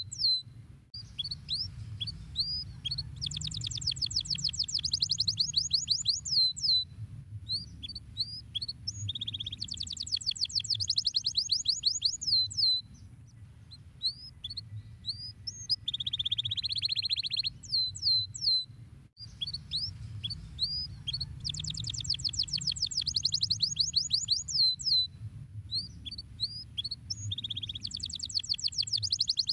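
Domestic canary singing: phrases of very fast trills, buzzy rolls and sharp rising notes, with short pauses between phrases, over a low steady hum.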